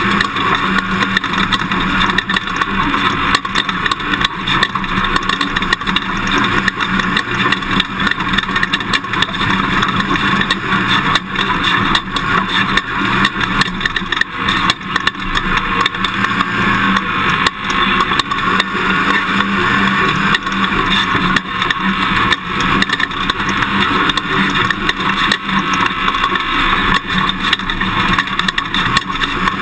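Toyota Tundra pickup driving an off-road dirt course: steady engine and road noise with constant knocks and rattles as the truck jolts over rough ground.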